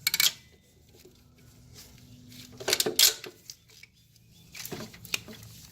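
A few short metallic clinks and rattles of a bolt and hand tools being handled while a 14 mm bolt is fitted by hand into the alternator mount. The loudest cluster comes about three seconds in.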